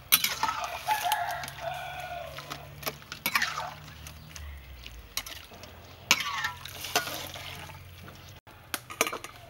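A rooster crowing: one long call that falls in pitch, then shorter calls later. Under it are sharp clinks of a wire spider strainer against a wok and the bubbling of boiling water as leafy greens are blanched.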